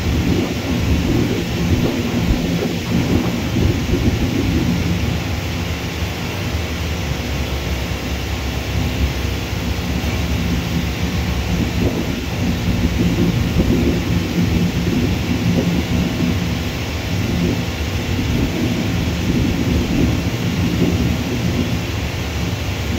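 A continuous low rumble of distant jet aircraft across an airfield, with a faint steady hum underneath, swelling and easing slightly without a break.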